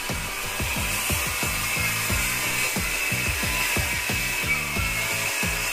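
DeWalt corded circular saw cutting through a plywood sheet, a steady high motor whine over the cutting noise. Background music with a steady beat plays underneath.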